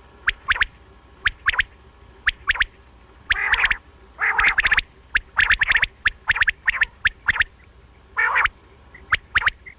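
Common quail calling over and over: sharp, clipped notes in quick groups of two and three, mixed with short, harsher raspy calls.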